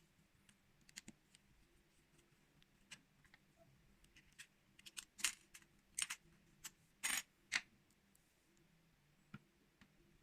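Faint scattered clicks and ticks of small parts being worked on inside an opened tablet, as the cover over the battery connector is pried off. A quick run of louder clicks and a short scrape come in the middle.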